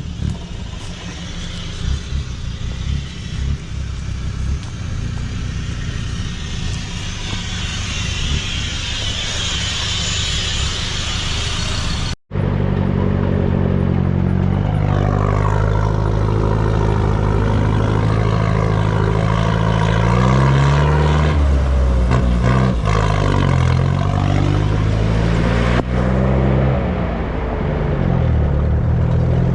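Diesel engine of a Troller 4x4 off-roader working over rough trail, first under a noisy clatter. After a sudden break about twelve seconds in, the engine's pitch repeatedly rises and falls as it revs and eases off.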